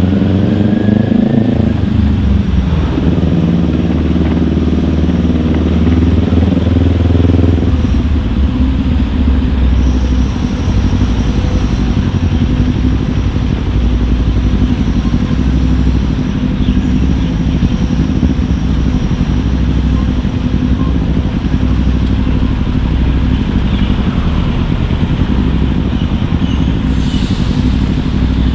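Kawasaki Ninja 400's parallel-twin engine under way: its note rises, dips at a gear change about two seconds in, then holds for several seconds. After that the engine note fades into an even low rumble, with a brief hiss near the end.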